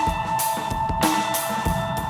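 Background music: a rock drum-kit beat under steady held notes.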